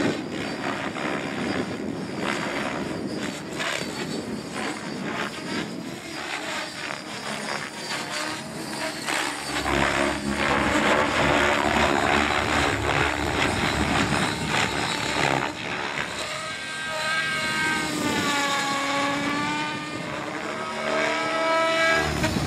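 Electric Thunder Tiger Raptor E700 RC helicopter with Zeal Energy main blades in flight, its rotor blades whooshing over the whine of the electric motor and drivetrain. From about three-quarters through, the whine swoops down and back up in pitch as the helicopter manoeuvres.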